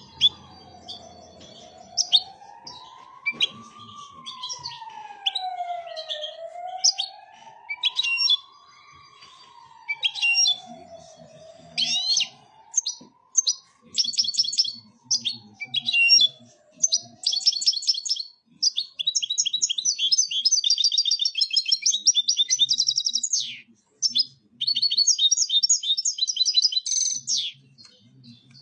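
European goldfinch singing: long runs of fast, high twittering and trilling notes, densest in the second half. For the first half a fainter slow wail rises and falls every couple of seconds beneath the song, then fades out.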